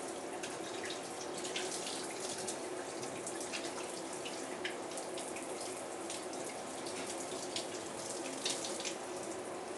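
Shower running into a bathtub: a steady hiss of falling water with many small spatters as the spray hits the tub and a wet cat.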